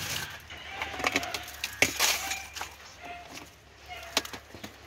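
Brittle, sun-aged plastic paint bucket cracking and snapping as pieces are broken away from a dragon fruit plant's root ball, in a string of sharp irregular snaps and clinks.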